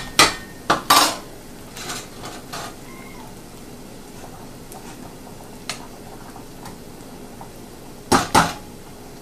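A metal spoon clinks a few times against a stainless-steel skillet of onions sweating in oil, then a faint steady sizzle, and about eight seconds in a quick clatter of metal as the lid of a saucepan of rice is handled.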